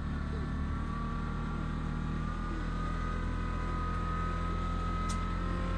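RK25 compact tractor's diesel engine running steadily, a low drone with a thin whine above it that rises slightly. A short sharp click about five seconds in.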